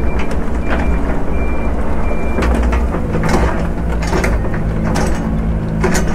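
Diesel heavy-equipment engine running steadily, with a backup alarm beeping about five times in the first couple of seconds, then several heavy knocks about a second apart as logs are handled.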